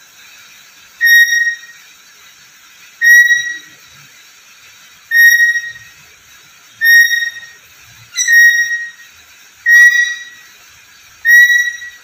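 Black-capped lory whistling seven times: each call is a loud, steady-pitched whistle of about half a second, repeated every one and a half to two seconds.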